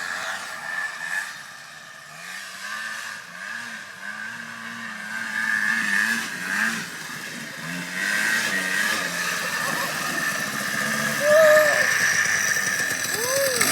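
Honda FL350 Odyssey buggy's single-cylinder four-stroke engine running as it is driven, revving up and down; quieter a couple of seconds in and louder from about eight seconds in.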